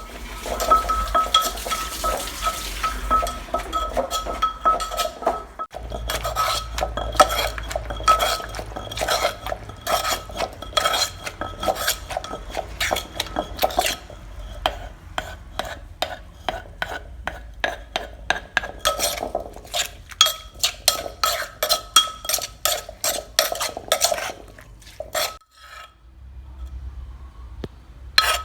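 A metal utensil stirring food in a metal pan, with rapid clinks and scrapes and a faint ringing from the pan. The strikes come quicker in places and thin out to a few a second near the end.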